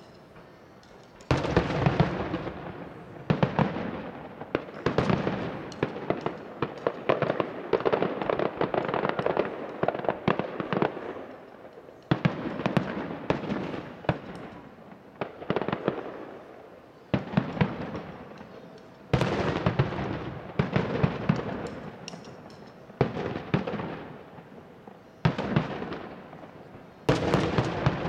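Fireworks going off in rapid volleys, sharp bangs with crackling, each volley trailing off before the next, coming about every two seconds after a brief lull at the start.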